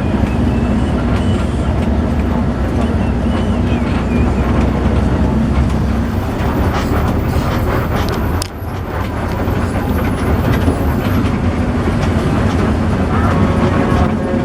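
Steady engine and road noise of a moving intercity bus, heard from inside the cabin. The level dips briefly a little over halfway through.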